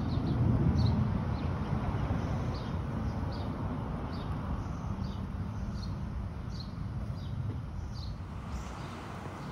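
Low rumble of distant thunder that swells about a second in and slowly dies away, while a small bird chirps over and over.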